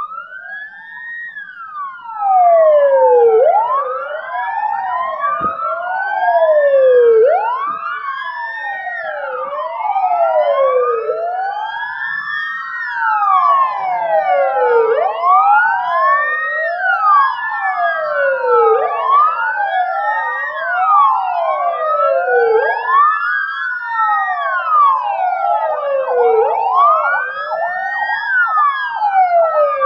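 Several ambulance sirens wailing at once and out of step with one another. Each slowly sweeps up and down in pitch, about once every four seconds, so the wails overlap and cross.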